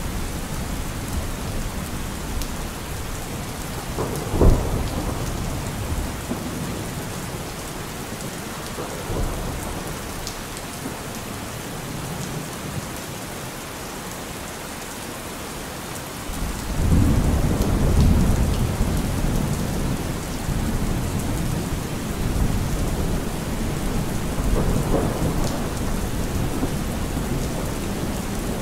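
Steady rain with thunder: a sharp crack about four seconds in, and a long low rumble that builds about halfway through and fades out slowly.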